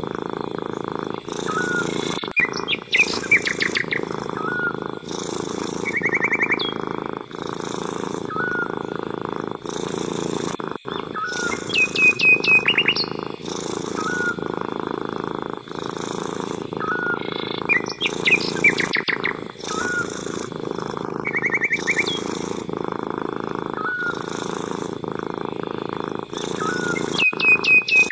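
A cat purring steadily, with birds chirping in short rapid trills every few seconds.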